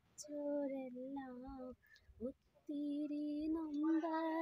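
A young woman singing a song solo, in long held notes over two phrases with a short breath between them about two seconds in.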